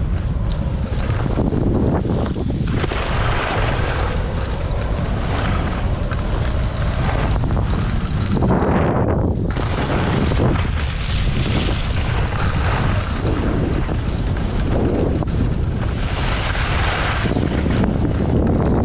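Wind buffeting a helmet-mounted action camera's microphone at skiing speed, a heavy steady rumble. Over it, the hiss and scrape of skis sliding over packed snow swells and fades with the turns.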